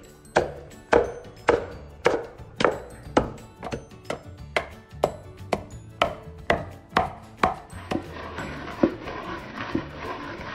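Pestle pounding chilies, salt and sugar in a wooden mortar: sharp, even knocks about twice a second. About eight seconds in the knocks give way to softer, rougher grinding strokes as the mix is worked into a paste.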